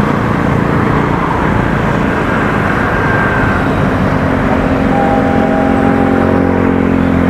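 Road traffic and a vehicle engine running: a steady low rumble, with an engine hum of constant pitch coming in about halfway through.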